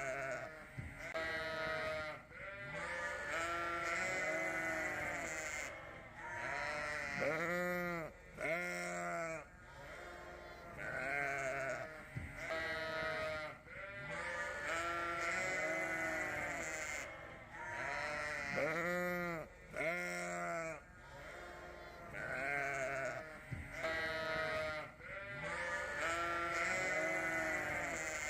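A flock of lambs bleating, many calls overlapping with hardly a pause between them.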